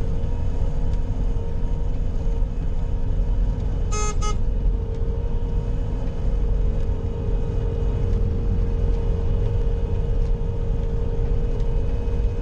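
Bobcat skid-steer loader running steadily, a low rumble with a steady whine over it. About four seconds in come two short beeps close together.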